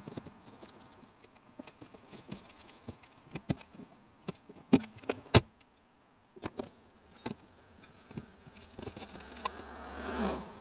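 Rustling of bags and bedding with scattered knocks and bumps as things are shifted about inside a small car. A few sharp knocks come in the middle, and a longer rustle builds near the end.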